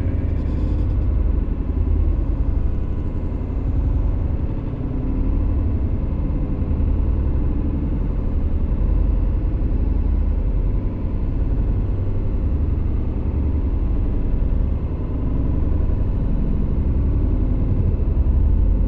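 Steady low rumble of tyres, engine and wind heard from inside a car cruising at highway speed.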